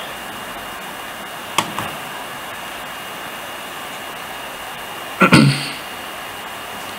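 Steady hiss with a faint high whine. A short click comes about a second and a half in, and a brief, louder bump with a low hum comes a little past five seconds in.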